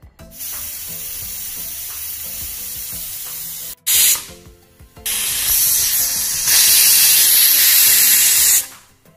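Prestige Popular aluminium pressure cooker whistling, its weight valve letting off steam in loud hisses. There are two long spells of hiss with a short blast between them, and the second spell is louder. The whistles show the cooker is at full pressure; two whistles mark the khichdi as cooked.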